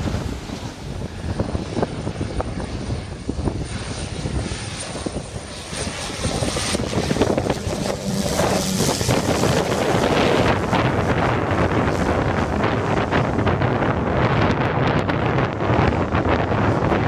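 Small single-engine propeller plane flying in low overhead on its landing approach, its engine and propeller growing louder about nine seconds in as it passes close, with wind on the microphone.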